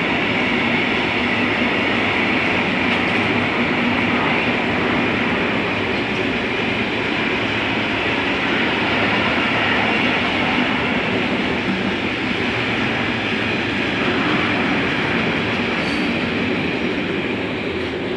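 Train rolling past close by, a loud steady rush of wheels on rail with a faint clickety-clack, starting to die away near the end.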